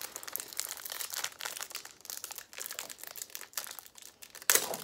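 Plastic wrappers of baseball card packs crinkling and tearing as they are opened by hand, with a louder burst near the end.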